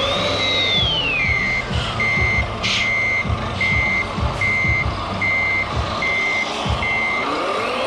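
Reversing alarm on a radio-controlled model truck, beeping steadily at about three beeps every two seconds and stopping shortly before the end. A whining tone falls in pitch over the first two seconds and rises again at the very end.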